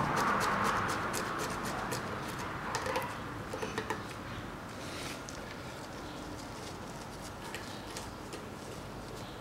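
Small clicks and rustles of gloved hands handling wires and pushing connectors onto the terminals of an air compressor's pressure switch, with a short hiss near the start.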